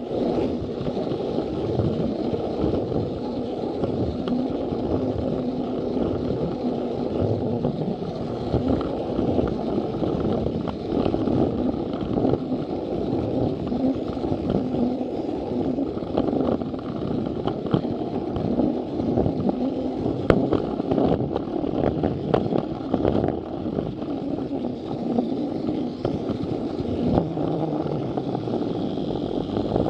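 Plarail toy train running on plastic track, heard close up: a steady whirr from its small electric motor and gears, with scattered clicks as the wheels pass over the track joints.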